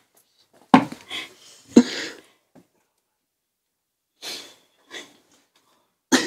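Stifled laughter from people trying to stay silent: a handful of short, breathy snorts and puffs through covered mouths, separated by quiet gaps.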